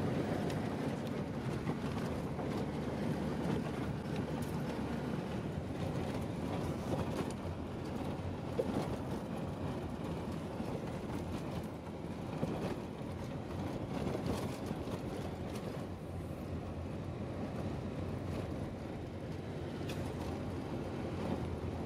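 4x4 driving fast over sand, heard from inside the cabin: steady engine and tyre noise with a few light knocks.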